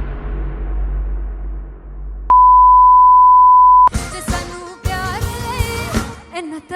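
A loud, steady, high electronic beep lasts about a second and a half. It cuts off and a song starts with a voice singing over music.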